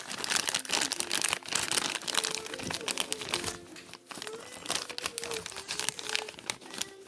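A plastic parts bag crinkling and crackling as it is handled and torn open by hand.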